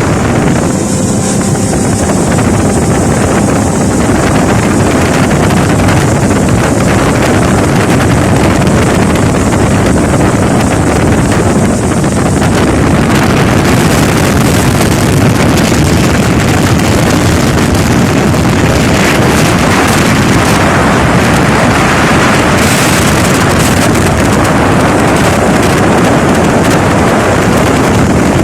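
Motorboat under way, its engine and rushing water buried under heavy wind buffeting the microphone; a loud, steady roar of noise.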